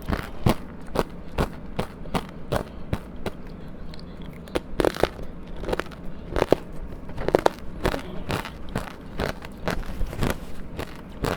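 Close-miked biting and chewing of soft, powdery frozen ice dusted with matcha powder: a steady run of short crunches, about two or three a second, with a few louder ones in the middle.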